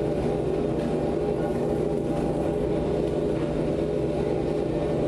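Live ambient drone music from electric guitar and electronics: a steady, dense wash of held low tones with no breaks.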